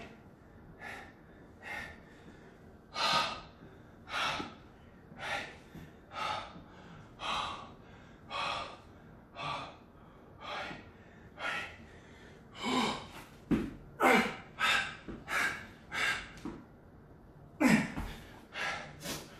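A man panting heavily, winded from exertion, with loud breaths about one a second that come faster in the second half. Two dull thumps sound in the second half, the later one the loudest sound here.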